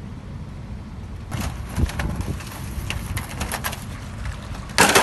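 Wind rumbling on the microphone, with rustling and knocking of storm debris being handled, and a loud scrape near the end as a worker carries a large piece of tornado debris past.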